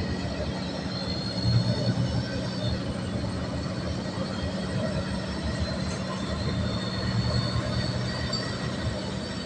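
Cabin noise inside a moving bus: a steady low drone of engine and road noise, with faint high whining tones that drift in and out.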